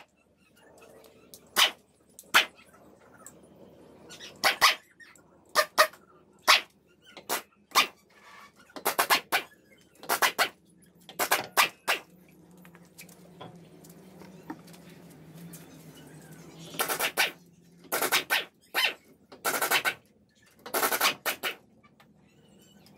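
A dog barking repeatedly, in single barks and quick pairs, with a few seconds' pause about halfway through.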